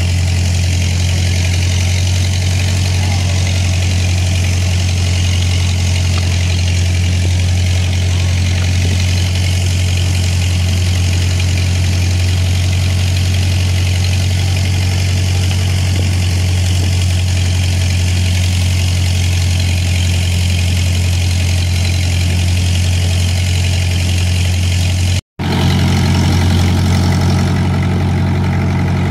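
Fishing boat's engine running steadily, a deep, even drone that holds throughout. It drops out for an instant near the end and comes back slightly louder.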